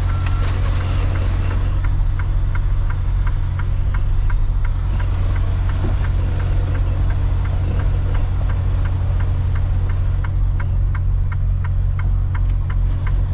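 Semi truck's diesel engine idling, heard from inside the cab as a steady low hum, with a light regular clicking about three times a second over it.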